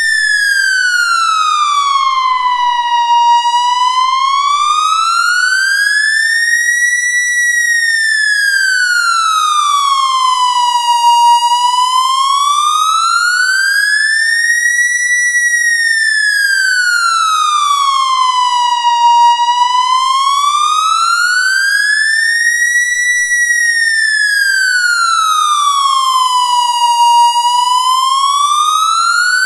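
Police car siren sounding a slow wail: one steady tone that glides smoothly up and down, each rise and fall taking about eight seconds.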